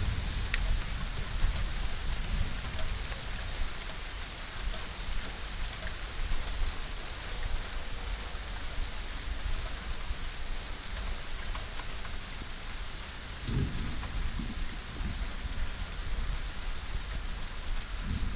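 Thunder rumbling low over a steady hiss. A rumble near the start dies away over the first few seconds, and a new rumble breaks in suddenly about two-thirds of the way through.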